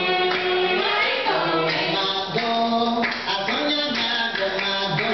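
Afro-Cuban folkloric song for a Palo and Arará dance: a chorus of voices singing long held notes that step in pitch, over light percussion.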